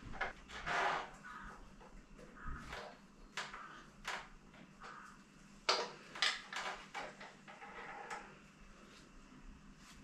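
Irregular clicks, knocks and short rattles of tools and metal bike parts being handled while a bicycle is taken apart, with a longer scraping rattle about a second in and sharper knocks around six seconds.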